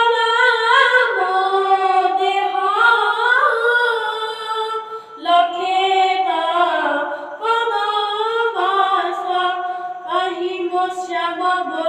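A young boy singing an Odia bhajan unaccompanied, in a high voice with long held notes that slide between pitches. He pauses briefly for breath about five seconds in and again past the middle.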